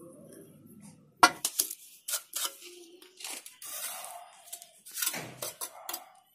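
Steel mason's trowel scraping and tapping cement mortar and bricks during bricklaying: a sharp clink a little over a second in, then a series of scrapes and knocks.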